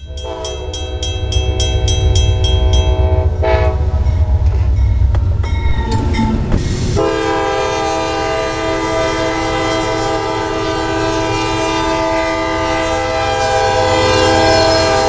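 Diesel freight train at a grade crossing. A crossing bell rings rapidly over the low rumble of the locomotives. From about seven seconds in, the locomotive's air horn sounds one long, steady blast.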